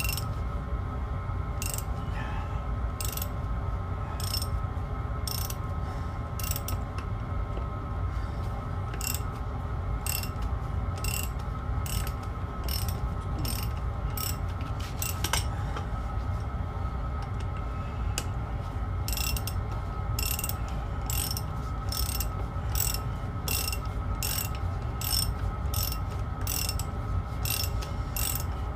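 Ratchet spanner being worked back and forth on a stubborn old bolt, giving short bursts of clicking about once or twice a second. Under it runs the steady hum of a small diesel heater.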